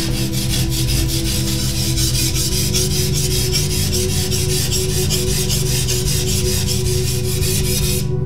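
Katana blade being scraped back and forth across a polishing whetstone: a rasping scrape in quick, even strokes that stops abruptly near the end, with steady low tones underneath.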